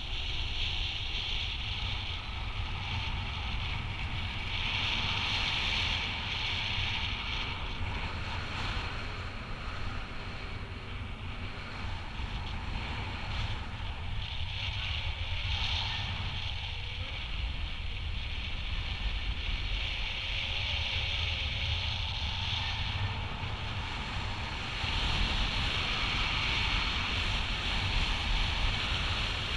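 Airflow of paraglider flight rushing over the camera microphone: a steady low wind rumble, with a higher hiss that swells and fades every few seconds.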